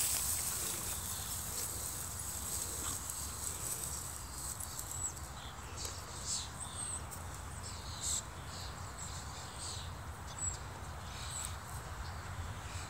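Dry cut hay rustling and crackling as dogs push and root through it, loudest in the first few seconds. Through the middle come several short, high chirps and brief rustles.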